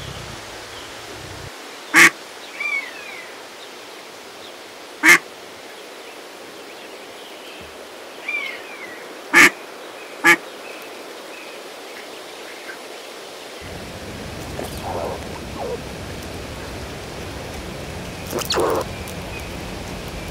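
Canada geese honking: four short, loud honks over about ten seconds, with fainter high peeping between them, typical of goslings. Near the end, after a cut, a few softer calls.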